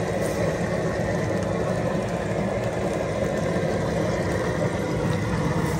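Crappie frying in a pot of hot grease: a steady sizzle over a low, steady rumble.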